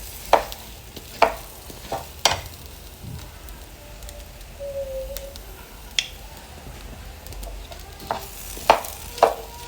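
A spoon stirring rice, lentils, potatoes and carrots as they fry with spices in a pot: irregular scrapes and knocks against the pot over a low sizzle.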